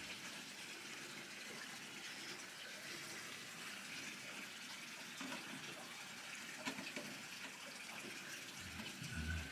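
Spring water running and splashing steadily from a small waterfall, a constant even rush. A few soft knocks come in the second half.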